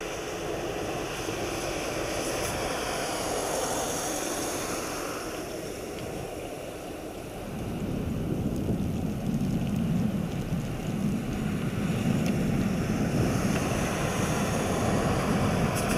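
Wind rumbling on the microphone, with road noise that swells about halfway through as a car approaches and passes close by.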